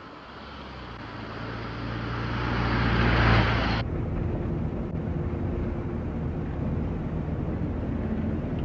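A car approaching along a road, its engine and tyre noise swelling to a peak, then cutting off abruptly about four seconds in. After that comes the steady engine and road drone heard inside a moving car.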